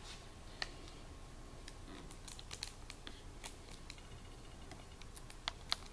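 Faint plastic clicks of fingers pressing the buttons and turning the knob of a stereo head unit, scattered through, with two sharper clicks near the end.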